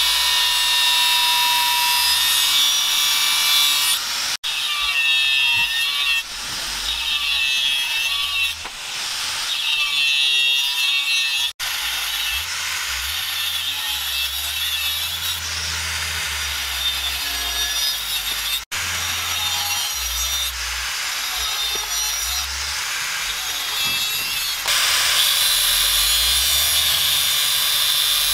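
Handheld electric angle grinder with a red abrasive disc grinding a leaf-spring steel knife blade, a steady loud grinding whine. The sound cuts out for an instant three times and is louder again near the end.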